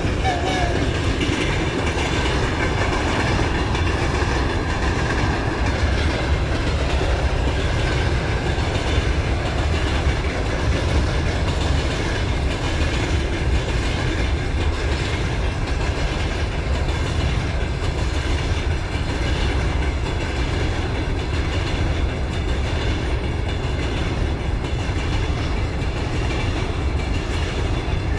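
Freight train passing close by: a VL80-series electric locomotive followed by covered hopper wagons, with a steady rolling rumble and wheels clattering rhythmically over the rail joints. The last of a horn note fades out right at the start.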